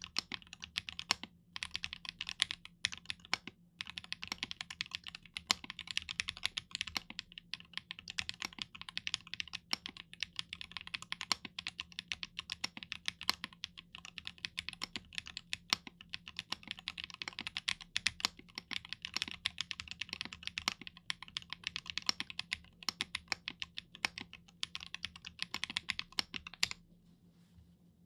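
Typing on a Chimera65 R2 PC custom mechanical keyboard with an FR4 plate, GMK keycaps and Sunny Side Up linear switches: a fast, steady stream of keystroke clacks with a few brief pauses, stopping near the end.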